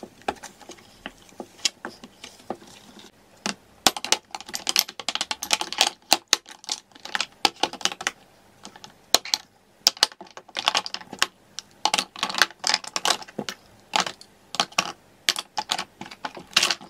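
Makeup bottles and concealer tubes clicking and clattering against each other and a plastic drawer organiser as they are set down and packed in. A few scattered taps at first, then quick irregular clusters of clicks.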